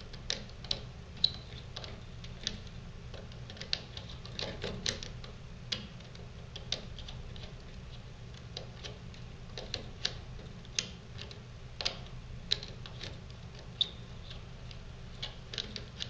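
Small screwdriver turning a screw in a plastic terminal strip to clamp a wire, giving light, irregular clicks and ticks.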